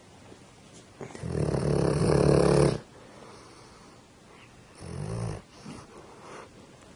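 Sleeping dog snoring: one long, loud snore starting about a second in and lasting nearly two seconds, then a shorter, quieter snore about five seconds in.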